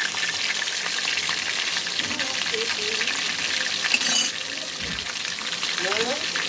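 Pieces of hilsa fish tail sizzling and crackling as they fry in hot oil in a pan, with a brief sharp knock about four seconds in.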